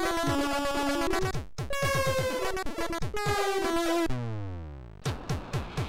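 Commodore 64 SID chip music from a 6581 sound chip: a square-toned melody over pitch-dropping synth drum hits, with a brief gap about a second and a half in. Near the end the tune gives way to a falling sweep that fades, then a new ticking rhythm begins.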